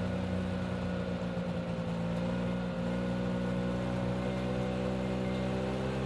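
1984 Yamaha Bravo snowmobile's single-cylinder two-stroke engine running steadily while the sled is under way.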